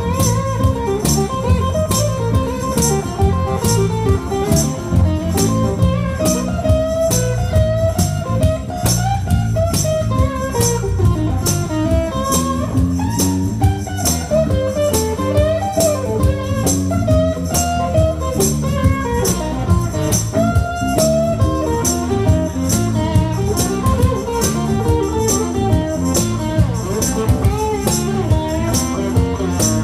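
Live acoustic band playing without vocals: acoustic guitar and bass guitar, with a tambourine striking on the beat about twice a second and a melody line sliding up and down on top.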